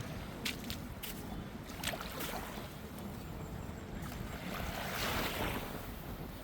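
Sea surf washing on a sandy beach, with wind noise on the microphone; a wave swells and hisses up the shore about five seconds in.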